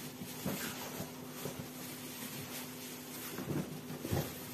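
Cardboard box and styrofoam packing rustling and scraping as they are handled, with a few soft knocks in the second half, over a steady low hum.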